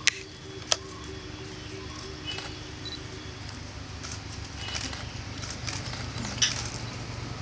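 Camera shutter clicking twice about half a second apart near the start and once more near the end, over a steady low hum with a few faint bird chirps.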